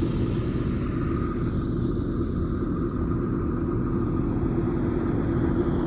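A vehicle engine running steadily, with a constant low rumble and a faint steady whine above it.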